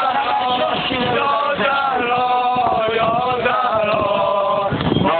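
A male lament reciter chanting a Shia mourning elegy (noha) in long, wavering held notes through a microphone, over the thuds of a crowd of men beating their chests.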